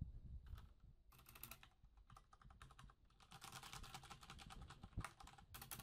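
Logitech G610 Orion Brown mechanical keyboard with Cherry MX Brown switches being typed on fast, in bursts of rapid key clicks, with one heavier key thump about five seconds in.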